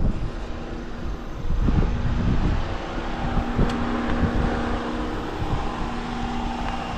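A car's engine left running with a steady hum and a rushing of air, heard from beside the car with wind buffeting the microphone; the car is steaming after striking something hard. A single sharp click about three and a half seconds in.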